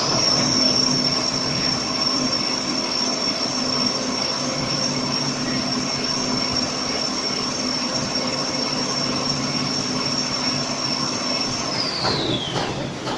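Toilet paper roll production line machinery running: a high-pitched motor whine holds one steady pitch, then winds down near the end, over a steady lower machine hum.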